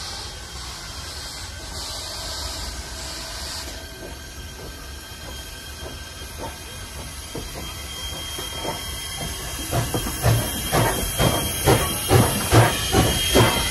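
Steam locomotive No. 89, a 2-6-0, working under power as it comes up and passes close: a steam hiss at first, then exhaust chuffs in an even beat that grows much louder over the last few seconds, about two to three a second.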